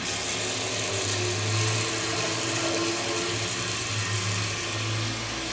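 Water running from the tap of a stainless-steel all-in-one washbasin unit into its steel basin, switched on by its water button: it starts suddenly with a click, then runs as a steady rush with a low hum beneath.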